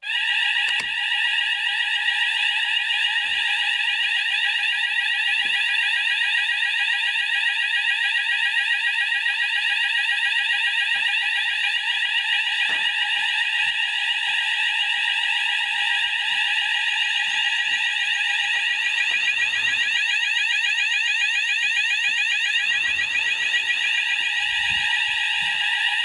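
Fire alarm sounders of a Hochiki ESP addressable fire alarm system going off together, set off by a manual call point test. The loud, fast-sweeping alarm tone starts abruptly and holds steady, with faint knocks of handling and footsteps underneath.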